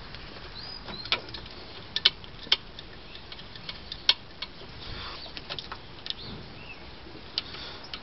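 Scattered sharp metallic clicks and clinks, about six spread irregularly, from tools and brake caliper parts being handled while a car's front brake caliper and pads are refitted. Faint bird chirps in the background.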